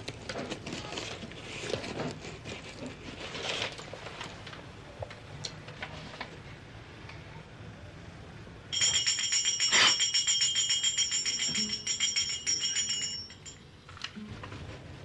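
Paper rustling and crinkling for the first several seconds. Then, a little past the middle, a bell rings with a fast, even rattle of hammer strikes for about four and a half seconds and stops.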